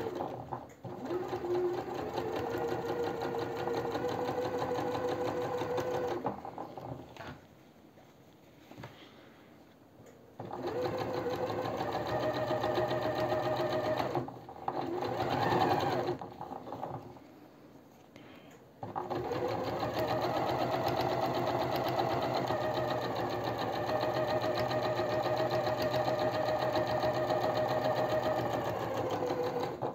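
Domestic electric sewing machine understitching a jacket collar seam, its motor whine climbing as it speeds up at the start of each run. It stitches in three stretches, stopping twice for a few seconds as the fabric is repositioned.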